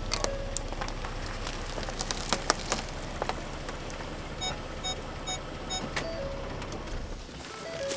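Ford Explorer's engine idling with a low hum, with a few sharp clicks and knocks. Then a series of short, evenly spaced electronic chimes sounds from the open driver's door, and the engine hum cuts off near the end.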